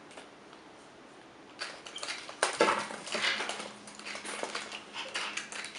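Hand grinder twisted over a metal flour sifter: a run of quick crunching, scratchy ticks starting about one and a half seconds in, with grains falling into the metal.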